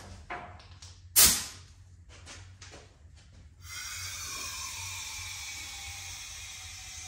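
A short, sharp blast of compressed air as the air hose is put on the valve. About three and a half seconds in, a steady hiss starts as compressed air flows through the 3/8 line into the rear air-ride bags, raising the axle, with a faint whistle that slowly drops in pitch.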